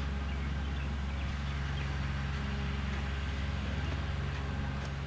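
Steady low hum at several fixed pitches, unchanging in level.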